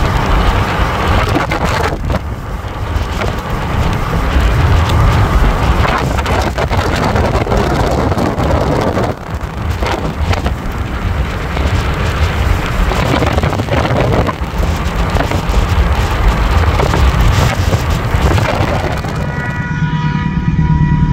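Wind buffeting the microphone over the low rumble of a long freight train of flat wagons passing at a distance. About a second and a half before the end it cuts to a steady hum with a few thin high tones above it.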